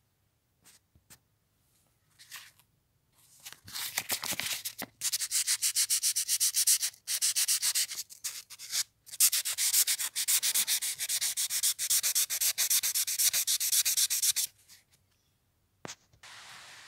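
Padlock shackle hand-sanded with 1200-grit wet and dry paper: quick back-and-forth rubbing strokes, about five a second, in runs broken by short pauses. They start about three and a half seconds in, after a few light clicks.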